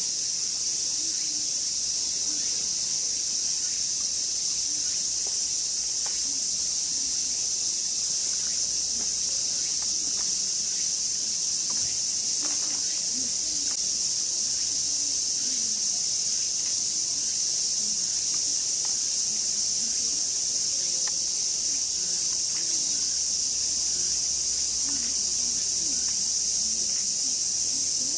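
Summer cicadas buzzing in a dense, continuous chorus: a loud, high, even hiss that holds steady without a break.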